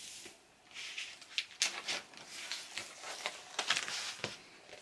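A paper record inner sleeve and cardboard LP cover being handled on a table: a run of dry rustles, scrapes and light ticks as the vinyl record in its sleeve is moved about.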